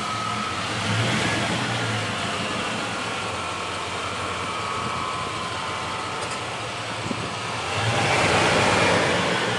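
Pickup truck engine running, swelling louder briefly about a second in and again near the end.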